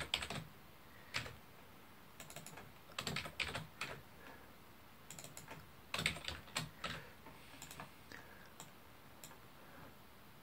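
Typing on a computer keyboard: short bursts of keystrokes with pauses between them.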